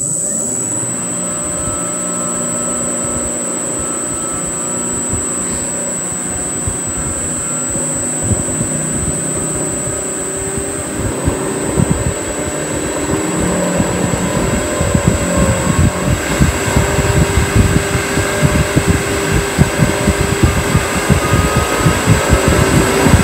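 Powermatic Model 90 lathe's 1 hp three-phase motor, driven by a variable frequency drive, speeding up as the drive is stepped from about 24 Hz to over 100 Hz, far past its normal 60 Hz. A steady high whine sits over the running motor, and the sound grows louder and rougher, with rattling, from about halfway through.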